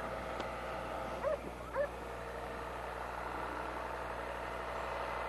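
Distant farm tractor with a front loader running steadily as it pulls a loaded hay wagon, with two short high yelps about one and two seconds in.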